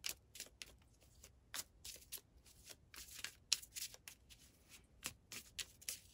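A miniature tarot deck being shuffled by hand: an irregular run of short, crisp card snaps and flicks, several a second.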